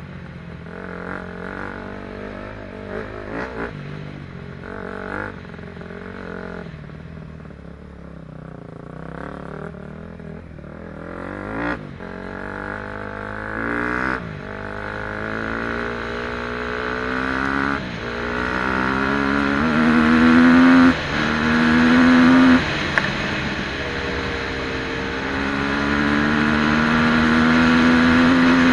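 KTM 250 SX-F four-stroke single-cylinder dirt bike engine, ridden: it runs unevenly at low throttle at first, then accelerates hard through the gears, with its pitch rising and dropping sharply at each of several upshifts. It is loudest over the last few seconds, held at high revs.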